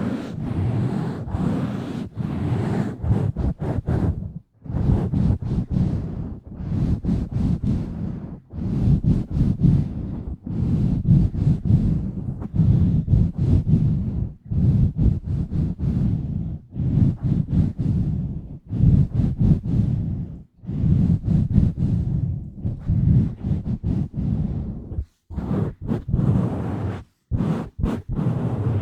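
Hands rubbing and scratching directly on a bare microphone, with no foam cover. It makes a loud, low, rumbling noise in irregular strokes, broken by several brief pauses.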